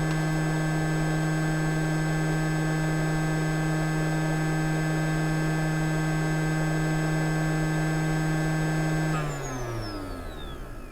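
JBC TE-1QD hot air station's blower running at a steady pitch with a strong hum, then winding down about nine seconds in, its pitch sliding lower as the airflow stops.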